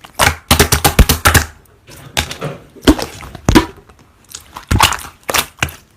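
Slime being squished and pressed by hand, giving bursts of crackling, popping clicks with short pauses between them.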